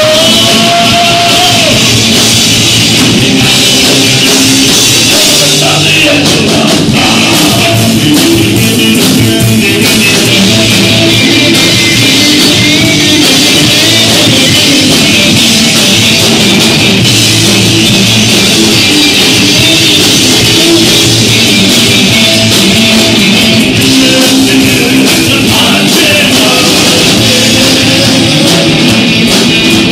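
Live rock band playing loudly, with electric guitar and a drum kit, in a steady, dense wall of sound.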